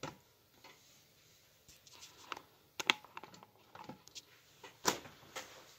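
Paintbrush dabbing and tapping on a stretched canvas and palette: a handful of light, irregular taps and clicks, the sharpest near the middle and about five seconds in.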